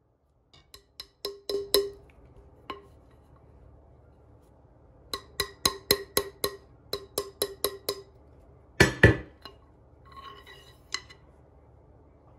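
A small hammer tapping copper wire against a wooden baseball bat used as a mandrel, forming it into a ring: quick runs of light strikes that ring briefly, with a louder knock about nine seconds in.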